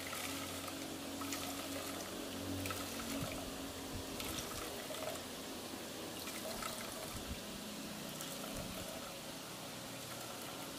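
Coconut milk trickling through a cotton straining cloth into a pot as ground coconut paste is squeezed, with a faint steady hum beneath.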